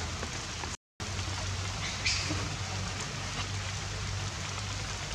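Light rain falling steadily, an even hiss. It drops out for a moment about a second in, and a short high chirp sounds about two seconds in.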